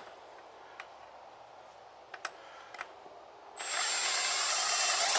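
Milwaukee 3/8-inch cordless ratchet with a 10 mm deep socket, running in one steady spell of about two seconds with a high whine to back out a bolt. Before it there are a few light clicks of the tools being fitted.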